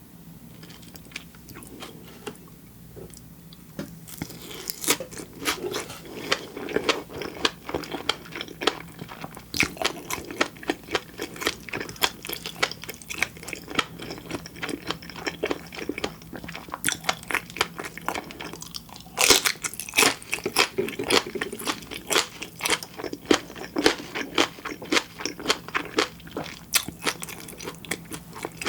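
Close-miked chewing of sashimi and black flying fish roe: a dense run of sharp, crisp pops and wet mouth clicks. It is sparse and quieter for the first few seconds, then becomes continuous.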